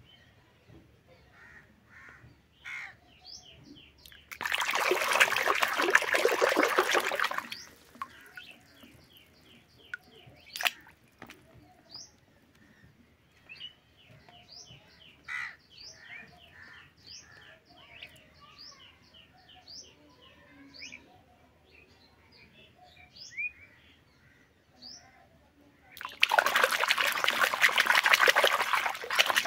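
Water splashing as a hand churns plastic toy animals in a tub, in two bursts of a few seconds each, about five seconds in and near the end. Birds chirp faintly in the background between the splashes.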